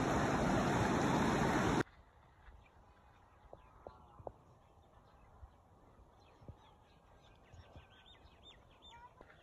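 Fast, muddy river rushing over stones, loud and steady, cutting off abruptly about two seconds in. Then a quiet open field with faint, scattered bird chirps and a few soft clicks.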